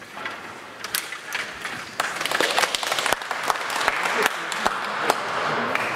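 STIGA table hockey game in play: rods and plastic player figures rattling and clicking against each other and the puck. Scattered clicks begin about a second in and thicken into a continuous clatter from about two seconds on.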